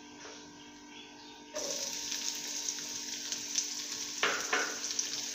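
Chopped onions hitting hot ghee in a kadhai start sizzling suddenly about a second and a half in, and the frying hiss then holds steady. A couple of short knocks sound about four seconds in.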